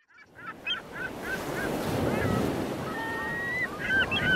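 Waterbirds calling over a steady wash of wind and waves: a string of short calls, one longer held call about three seconds in, then a quick flurry of calls near the end.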